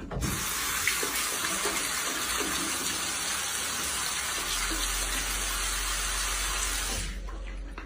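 Steady rush of running water that fades out about seven seconds in.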